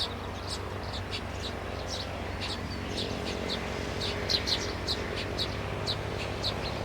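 Small birds chirping: short, sharp, high notes, several a second and irregular, over a steady low hum.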